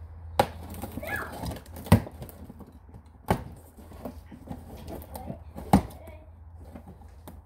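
A cardboard box being opened with a utility knife and handled: four sharp knocks and taps on the cardboard with faint scraping between them, over a low steady hum.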